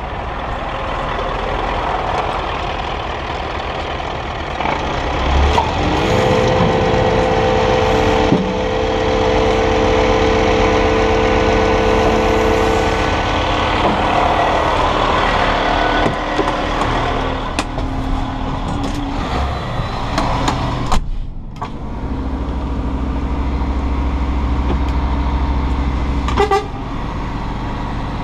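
A 32-ton grab lorry's diesel engine running at idle, heard from alongside the lorry and then from the cab, with a steady pitched drone laid over it for about seven seconds in the first half. The sound drops out briefly about two-thirds in, and after that the low engine rumble is stronger.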